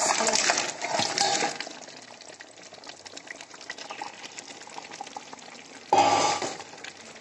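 Fried chicken pieces tipped from a bowl into a pot of thick simmering masala gravy, landing with a wet, clattering splash for about the first second and a half. A quieter steady sizzle from the pot follows, then a short loud burst of stirring noise about six seconds in.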